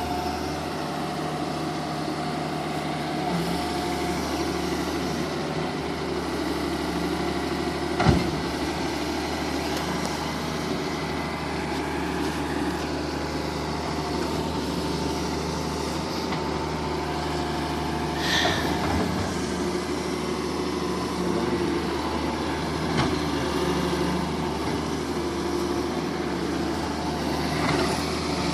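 Wheel excavator's diesel engine running steadily, with a single sharp knock about eight seconds in.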